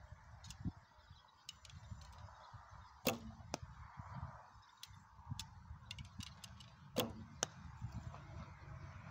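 Recurve bow shot twice, about four seconds apart: each release gives a sharp string snap, followed about half a second later by the arrow striking the target downrange. A low wind rumble on the microphone runs underneath.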